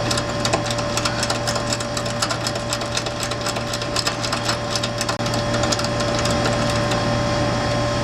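Rapid clicking of a ratchet service wrench turning a refrigerant service valve shut on the high side, starting a pump-down. Under it the running air-conditioning condensing unit with its two-stage reciprocating compressor hums steadily. The clicking stops about six seconds in.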